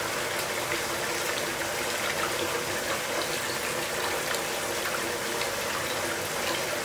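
Water running steadily from a bathtub spout and splashing into the tub.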